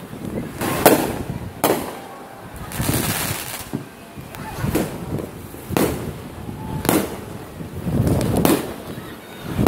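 Fireworks going off: a string of sharp bangs about a second apart, each trailing off in an echo.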